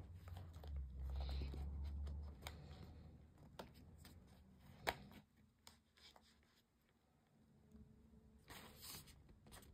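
Faint rustling and scraping of cardstock as an album page is slid onto a paper hinge spine, with a few soft taps and a brief rustle near the end.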